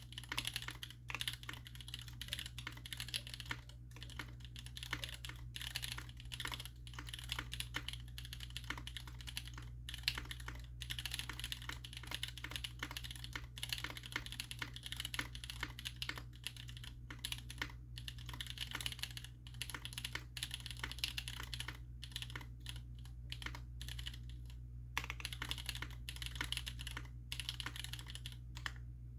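Continuous typing on an Andromeda mechanical keyboard with SP-Star Meteor Orange tactile switches, an aluminum plate and GMK keycaps: a dense, rather muted clatter of keystrokes broken by a few brief pauses.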